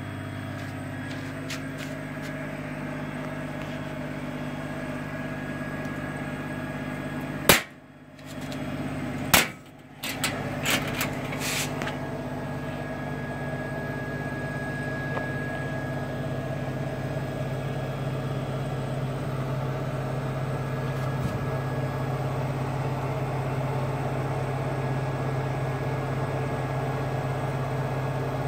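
Laser cutter running with a steady hum, with two sharp clicks about a quarter and a third of the way in and a few fainter clicks soon after.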